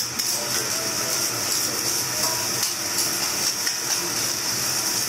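Fried rice sizzling on a steel teppanyaki griddle in a steady high hiss, with scattered light clicks and scrapes of metal spatulas chopping and turning it on the plate.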